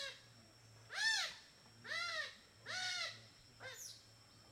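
An animal calling over and over, about once a second: short clear calls that rise and then fall in pitch, with a faint steady low hum underneath.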